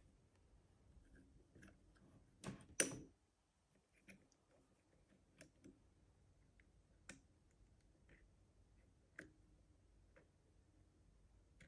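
Faint, scattered metal ticks and clicks of a pick lifting the levers inside an Easi-T lever lock, with two louder clicks close together about two and a half seconds in and lighter single ticks after.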